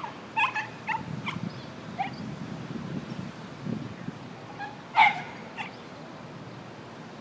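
A string of short, sharp animal calls, several in quick succession at the start and a louder pair about five seconds in, over a low rumble of wind on the microphone.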